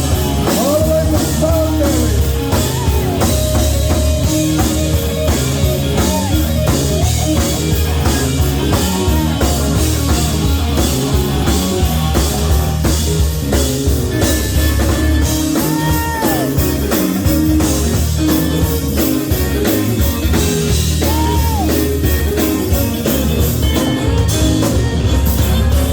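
Live gospel band playing loudly without vocals: drum kit and bass guitar driving a steady beat, with sliding guitar or keyboard notes above.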